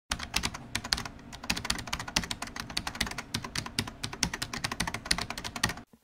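Fast typing on a computer keyboard: a rapid, uneven run of key clicks that stops abruptly just before the end.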